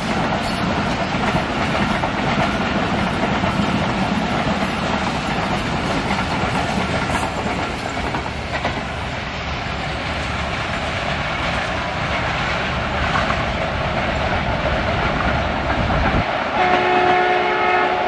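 Passenger coaches of an express train rolling past, wheels clattering over the rail joints; the rumble drops away about sixteen seconds in as the last coach pulls off. A horn sounds for the last couple of seconds.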